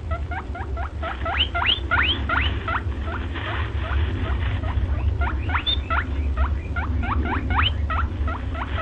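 A small animal squeaking in quick, rising chirps, about four a second, in runs with a short lull in the middle, over a steady low hum.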